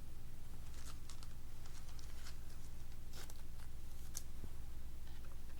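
Faint scattered clicks and rustles of trading cards and plastic card holders being handled, over a steady low electrical hum.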